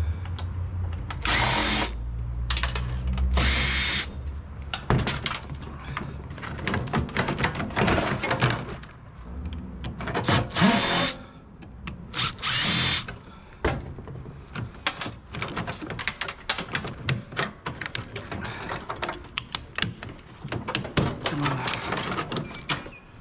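Cordless drill-driver whirring in about five short bursts of a second or so, taking the last parts out of a gutted microwave oven, between many clanks and rattles of metal parts. A low hum sits under the first few seconds.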